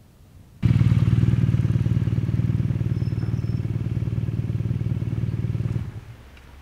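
BMW R nineT's boxer-twin engine running with a steady pulsing exhaust note. It starts abruptly about half a second in and cuts off sharply near the end.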